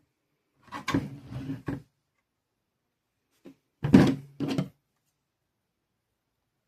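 Two short bursts of knocks and thuds from objects being handled and set down on a work surface, about a second each: one near the start and one about four seconds in.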